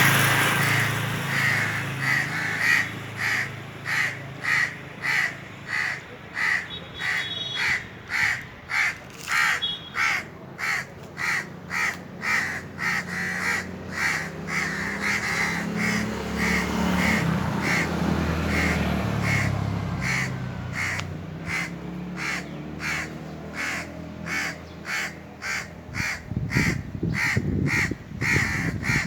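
Indian crows cawing in a steady, rapid series of short calls, about one and a half to two a second, with a faint low rumble underneath.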